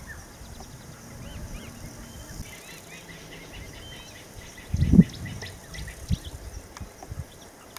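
Birds chirping in short repeated calls over a steady high insect hum in open bush. About five seconds in comes one loud low thump, with a few smaller knocks after it.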